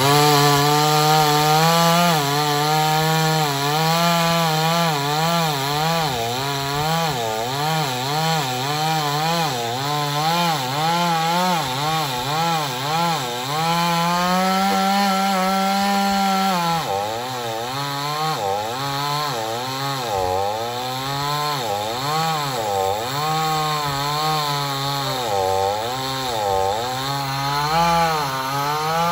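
Two-stroke chainsaw cutting into wood under load, its engine note wavering up and down about once a second. About halfway it holds a higher, steady note for a couple of seconds, then drops back and wavers again.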